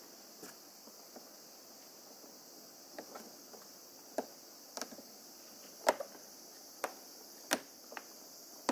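Plastic spark-plug access cover on a scooter clicking and tapping as it is pushed back into place by hand: a series of sharp separate clicks, roughly one a second, loudest a little past the middle.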